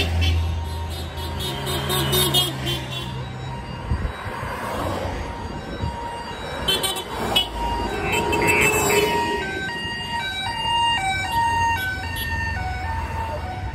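Cars and vans passing along a street, engines running, with short horn toots. Over the last few seconds a quickly changing series of high tones sounds, like a melodic horn or siren.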